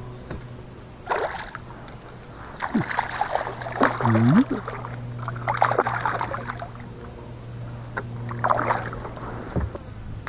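A hooked bass splashing and thrashing at the water's surface beside a kayak in several irregular bursts, over a steady low hum.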